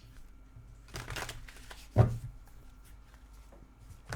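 Tarot cards being handled: a short rustle about a second in, then a sharp card snap about two seconds in.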